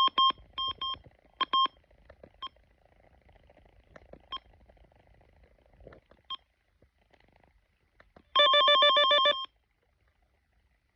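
Running Snail MD329 weather radio giving short electronic beeps as its buttons are pressed, several in quick succession in the first couple of seconds and a few single ones later. Near the end it sounds a loud warbling alarm tone for about a second.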